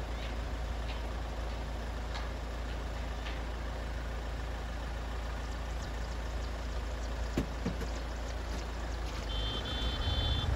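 A steady low rumble with a few faint ticks, and a quick run of short, high electronic beeps about nine seconds in.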